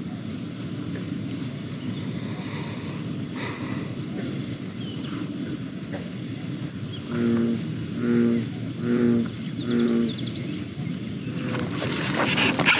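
An American bullfrog gives four deep, low calls about a second apart, over a steady high insect trill. Near the end a louder noise builds.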